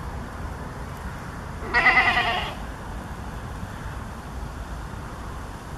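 A goat bleating once, a quavering call about a second long.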